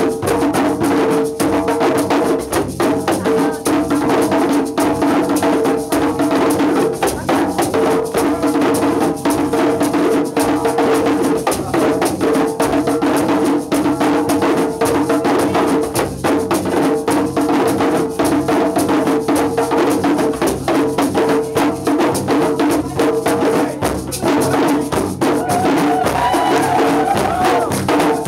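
A group of djembes and rope-tuned dunun bass drums, played by hand and with sticks, drumming a fast, dense rhythm together, with a steady low tone held underneath.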